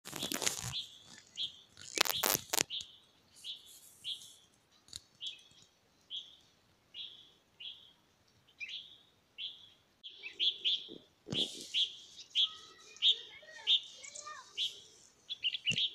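A small bird calling again and again with short high chirps, roughly one or two a second, joined by quicker twittering from about twelve seconds in. A few loud knocks cut in near the start, around two seconds in and again after about eleven seconds.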